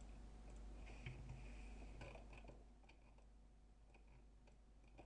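Near silence with a few faint computer-mouse clicks over a steady low hum.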